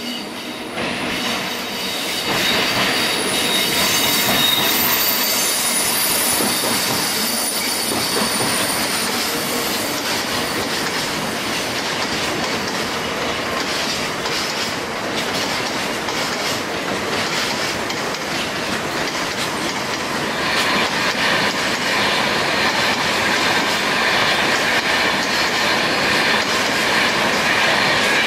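A long freight train of covered hopper wagons rolling past, growing louder about two seconds in as it draws level. Its wheels squeal with high thin tones through roughly the first half, and it clatters over the rail joints throughout.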